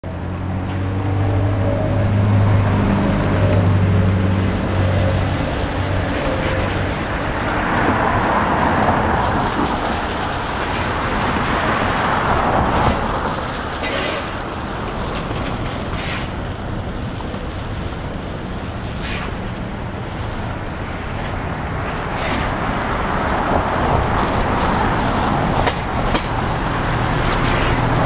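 Road traffic: motor-vehicle engines and tyres on the street, with a low engine hum for the first seven seconds or so and a vehicle passing about eight to thirteen seconds in. A few short clicks come later.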